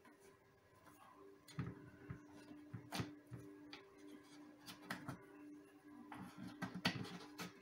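Scattered light clicks and knocks of a guitar part being handled and test-fitted against the guitar body during a neck reset, over a faint steady low hum.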